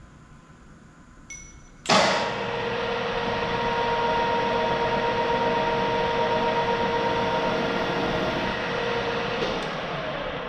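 Drill press motor switched on about two seconds in with a sharp start, running with a steady whine, then switched off near the end and winding down.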